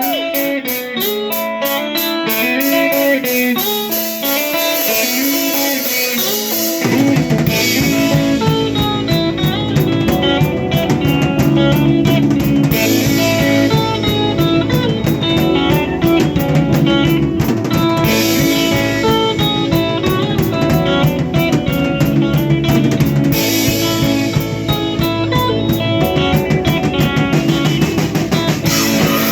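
Live rock band playing: guitar picks a melody with little underneath, then about seven seconds in the drums and bass come in and the full band plays on.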